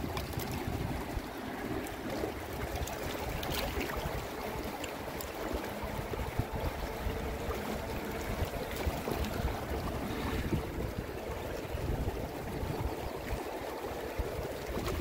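Flowing river water rushing and rippling steadily close by, with a low wind rumble on the microphone.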